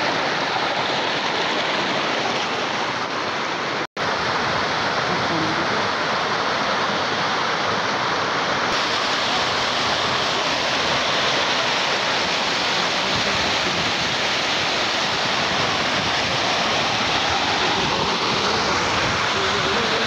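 Waterfall pouring down a rock face close by: a steady, loud rush of water, which cuts out for an instant about four seconds in.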